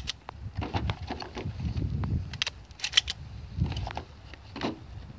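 Scattered clicks and rattles of a pump-action shotgun and boxes of shotgun shells being handled, over a low rumble.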